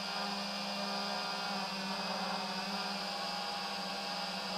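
FPV quadcopter's electric motors and propellers whirring steadily, a buzzing whine that holds one pitch.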